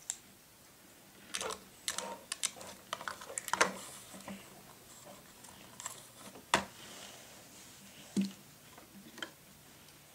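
Plastic toy figures and a plastic toy carriage being handled on a wooden tabletop: scattered light clicks and knocks, with a louder knock about a third of the way in and another about two-thirds of the way in.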